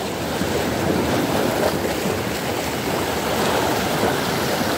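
Rough sea waves washing on the shore, a steady rushing noise.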